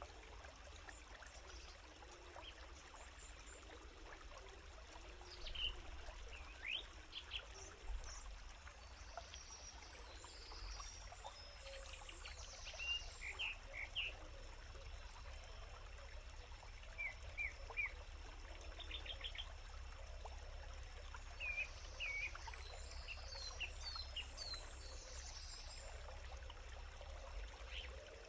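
Quiet forest ambience: a faint steady hiss and low rumble, with short high chirps of small birds scattered throughout, in clusters every few seconds.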